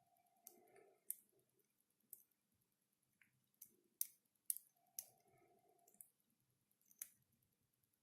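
Faint, sharp metallic clicks of a pick and tension tool working the pins inside a TITAN dimple eurocylinder lock, about ten of them at irregular intervals as pins are set.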